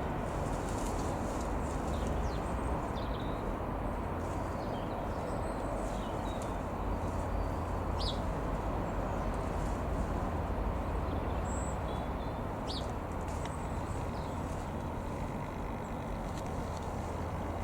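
Steady outdoor rumble with a low hum, with brief high bird chirps scattered through it.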